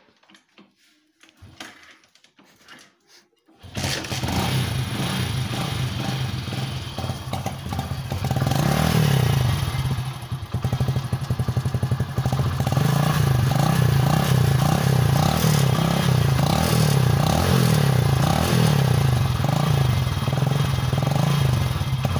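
A few faint clicks, then a motorcycle engine starts about three and a half seconds in and idles. From about eight seconds in it is revved up and down again and again, its exhaust blowing through a steel drinking glass taped over the end of the silencer.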